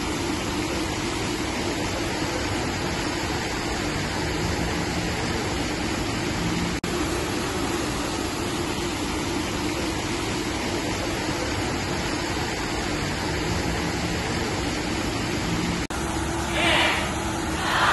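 Steady rush and splash of fountain water jets falling into a pool, with a faint low hum under it. A brief louder burst comes near the end.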